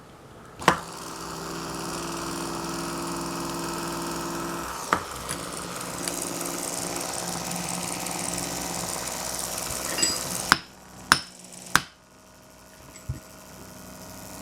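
Saab 9000 Mark IV ABS pump's electric motor running on bench power: it starts with a click and runs steadily for about ten seconds, then stops with a few sharp clicks. It sounds rough, which the owner blames on the bearing being pressed in with the socket slipped over too far.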